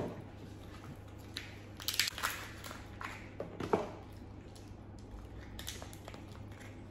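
Boiled shellfish shells cracked and pulled apart by hand, with two clusters of crackling snaps about two seconds and three and a half seconds in, and soft wet squishing between.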